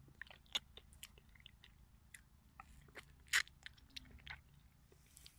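A person chewing a bite of fresh fig: faint, irregular mouth clicks, the loudest about three seconds in.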